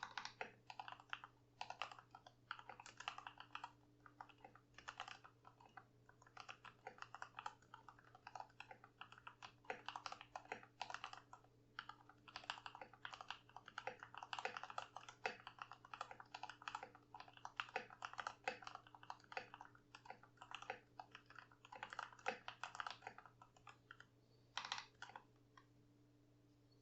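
Fast, continuous typing on a Keychron V2 65% mechanical keyboard with stock factory-lubed Gateron Milky Yellow Pro linear switches and PBT XDA keycaps, the keystrokes clacking in quick irregular runs. The typing stops about a second and a half before the end.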